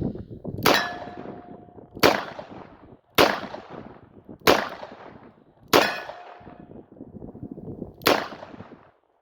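Six shots from a Smith & Wesson 686 .357 Magnum revolver. The first five are fired at an even pace about a second and a quarter apart, and the last comes after a longer pause. A short metallic ring follows two of the shots.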